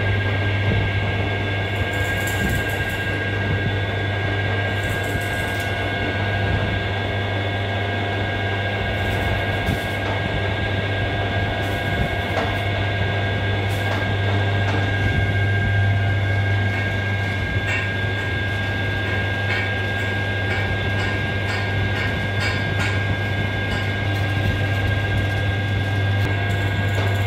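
Metal lathe running with a truck flywheel mounted in its chuck: a steady electric-motor hum with a constant whine from the belt and gear drive. A few light metal taps come near the end.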